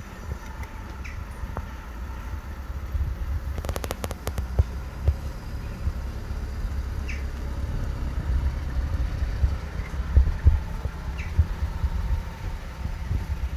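Steady low outdoor rumble with irregular low thumps, and a quick run of sharp clicks about four seconds in.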